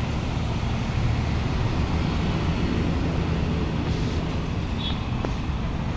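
Steady low rumble of road traffic in the background, unbroken throughout.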